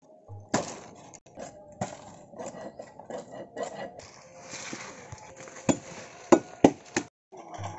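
A machete chopping green palm-frond stalks: a run of sharp strikes, with three of the loudest close together in the second half.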